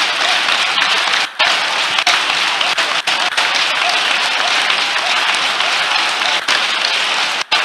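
A congregation praying aloud all at once: many overlapping voices in a dense, steady din, mixed with hand-clapping. It drops out briefly about a second and a half in and again just at the end.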